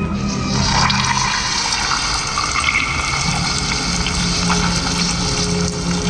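A loud, steady rushing hiss like running or spraying water sets in about half a second in, over a low steady drone of background music.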